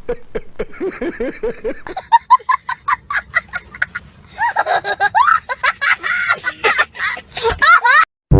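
Several people laughing in quick repeated bursts. The laughter turns higher-pitched about two seconds in and cuts off suddenly near the end.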